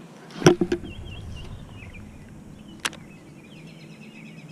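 A heavy knock of hands handling the fishing rod and camera about half a second in, with a couple of smaller knocks after it, and one sharp click near three seconds; birds chirp steadily in the background.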